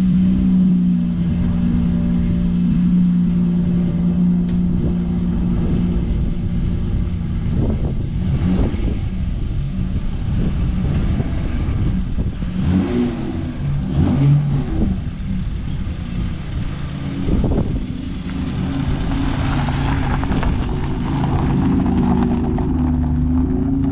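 Acura TL's engine running: a steady idle at first, then its pitch rising and falling a few times as the car is moved.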